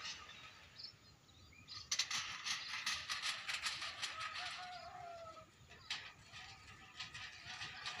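Rapid clattering of rope-pulled bird-scaring rattles, tin cans strung on lines across a rice paddy and shaken to scare birds off the ripening grain. It starts suddenly about two seconds in and thins out after about six seconds.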